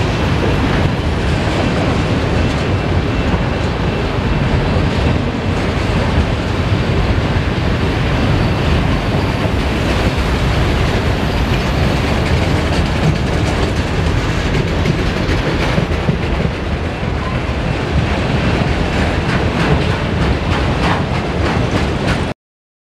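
Autorack freight cars rolling past: a steady rumble of steel wheels on rail, with clicks as the wheels cross rail joints. It cuts off suddenly near the end.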